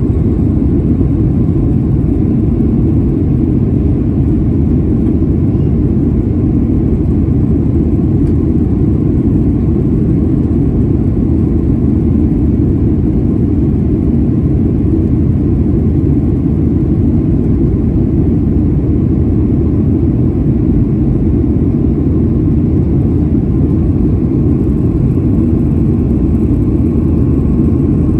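Steady cabin noise inside a Boeing 737-900 in flight: the CFM56-7B engines and the airflow past the fuselage make an even, unchanging drone, weighted to low pitches.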